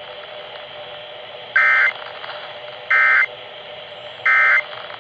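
Emergency Alert System end-of-message signal: three short, identical bursts of buzzy digital data tones (the SAME 'NNNN' code), a little over a second apart, over a steady hiss of broadcast noise. It marks the close of the relayed alert.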